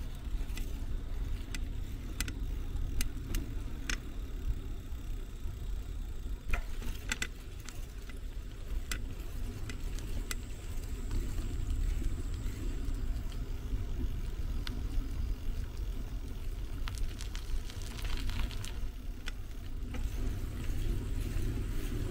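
A bicycle being ridden: a steady low rumble of wind on the microphone and tyres on the road, with scattered light clicks and rattles.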